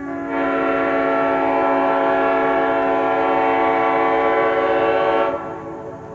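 Multi-chime locomotive air horn blowing one long, steady chord of several notes, starting right away and stopping about five seconds in.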